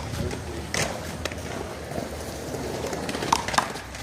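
Sharp smacks of a small rubber handball struck by hand and rebounding off the wall and pavement in a one-wall handball rally, about four hits in all, the last two with a short ringing ping. Steady outdoor background noise underneath.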